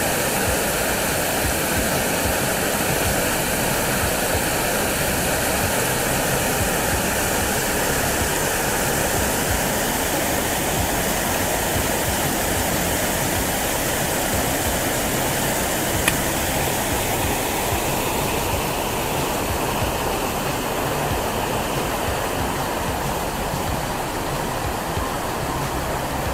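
Waterfall: water cascading over rock ledges into a creek, a steady rushing that eases slightly near the end.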